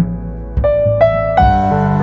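Soft background piano music: held notes over a low bass, with a short melody stepping up in pitch through three notes.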